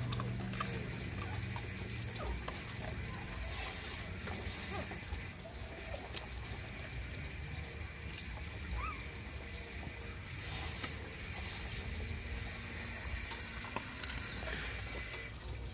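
A puppy eating soggy rice and fish from a plastic bowl: small, wet chewing and smacking sounds over a steady hiss, with one sharp click near the end.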